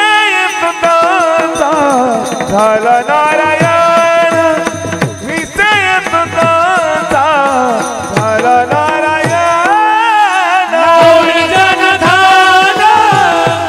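Male voice singing a Warkari devotional bhajan melody with long, bending, ornamented notes, accompanied by brass taal hand cymbals struck in a steady rhythm and a steady note held underneath.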